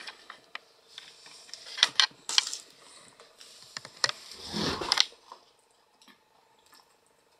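Scattered clicks and short rustles of a handheld camera being handled and moved, with a louder rustling thump about four and a half seconds in, then quiet.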